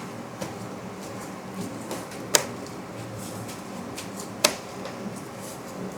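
Two sharp clicks about two seconds apart, with a few fainter ticks, as a ball-head hex driver turns a screw into its nut on a Prusa MK4S 3D printer, over a steady low hum.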